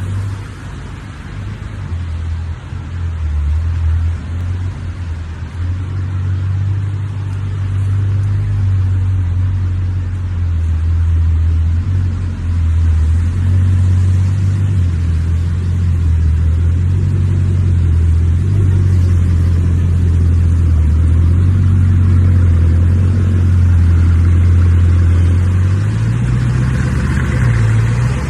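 Supercar engine running loudly with a deep, steady drone that shifts in level; the revs rise near the end.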